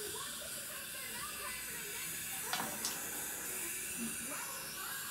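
Steady hiss of dental chairside equipment working in a child's mouth during tooth-sealant treatment, with two sharp clicks about two and a half seconds in.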